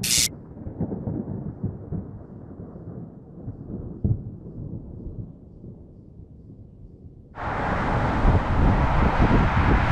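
A low, muffled rumble that slowly fades, then about seven seconds in an abrupt switch to louder, steady outdoor traffic noise.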